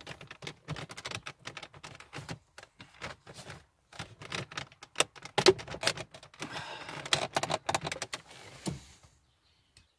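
Plastic clicking, knocking and rattling as a Renault 9 Broadway's instrument cluster is worked out of its dashboard housing, its retaining tabs pressed and the cluster pulled free. A rapid, irregular run of clicks that stops near the end.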